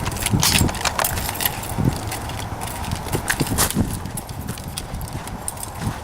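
Irregular footsteps and knocks on a hard floor, with sharp clicks mixed in.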